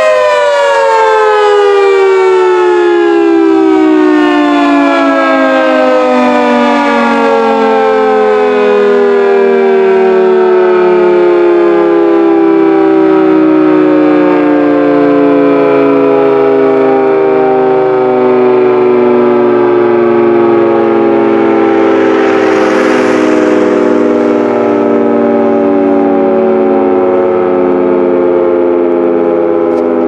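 Federal Signal two-tone outdoor warning siren winding down at the end of its steady alert: a loud chord whose pitch sinks slowly and smoothly and is still sounding at the end. A brief rush of noise swells and fades over it about 23 seconds in.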